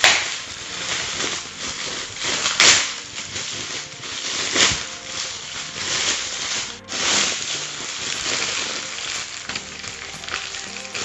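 Plastic mailer bag crinkling and rustling as it is handled and pulled open, with several sharper, louder crackles of the plastic.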